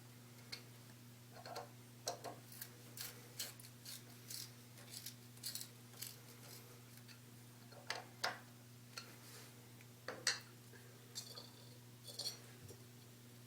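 Irregular light clicks, taps and short scrapes, over a steady low hum.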